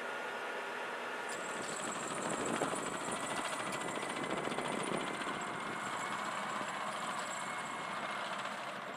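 M1A1 Abrams tank driving past on a gravel road: its gas-turbine engine gives a high, steady whine over a dense rumble, with a fast rattle from the tracks. It comes in about a second in, is loudest after two to five seconds, and eases slightly near the end.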